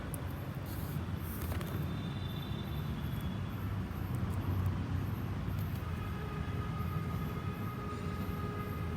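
Outdoor condenser unit of a central split air conditioner running with a steady low hum, with faint higher tones coming and going above it.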